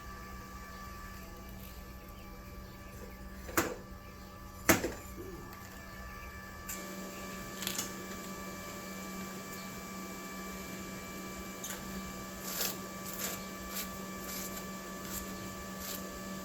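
Stick welding with a 7018 rod at about 115 amps. There is a steady hum, then two sharp knocks, then from about a third of the way in the arc crackles and sputters with scattered ticks.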